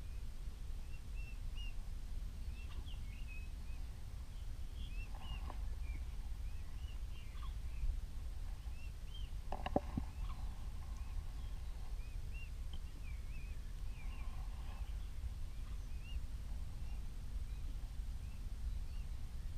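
Birds chirping: many short, high calls scattered throughout, over a steady low rumble. A single sharp knock a little before halfway.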